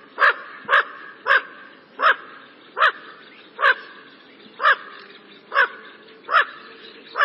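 Bufflehead calling: a run of about ten short calls, each rising and falling in pitch, repeated every half second to a second.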